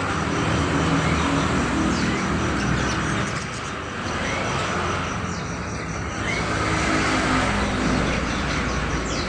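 Steady road traffic running close by, with scattered short chirps from caged birds.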